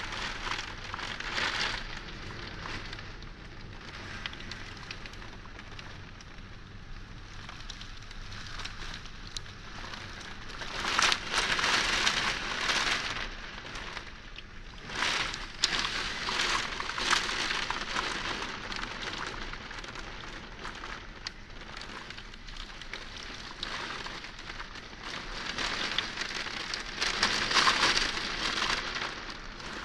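Heavy rain pouring down, a steady hiss that swells louder in waves, strongest about eleven seconds in and again near the end.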